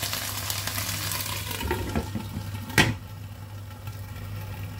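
Mushrooms and vegetables simmering and sizzling in water in a nonstick wok. About three seconds in, a glass lid knocks down onto the pan, and after that the bubbling goes on quieter and duller under the lid.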